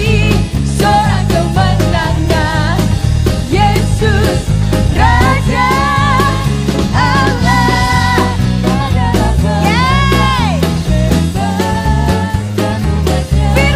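Live worship band playing an upbeat praise song on drum kit, bass and guitar, with a singer's voice over it; about ten seconds in the voice holds one long note that bends up and back down.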